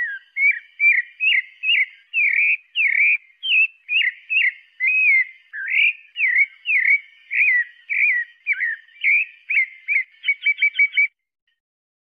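Pale-breasted thrush singing: a steady run of short, clear whistled notes at about two a second, each sliding up or down in pitch. It ends in a quick burst of rapid notes and stops about a second before the end.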